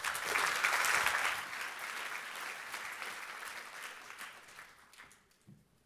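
Audience applauding, loudest in the first couple of seconds and dying away near the end.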